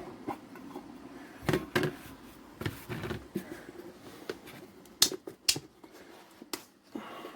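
Scattered sharp clicks and knocks of small objects being handled and set down, a few at a time, the loudest about five seconds in.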